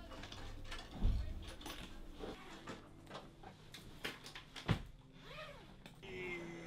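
Belongings and luggage being handled during packing: scattered knocks, clicks and rustles, with a thump about a second in and sharper knocks around four to five seconds in.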